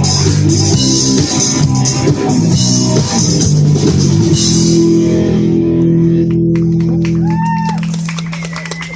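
Street rock band of electric guitar, bass guitar and drum kit playing the closing bars of a song. The drums and cymbals stop about halfway through, and a held chord rings on and fades away near the end.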